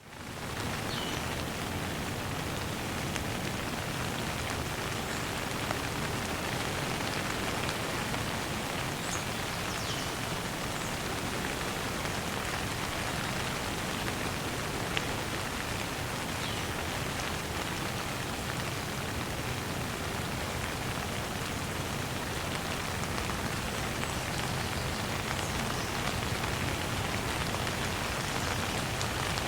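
Running shower: a steady spray of water pattering down, with a few small drips and splashes heard over it.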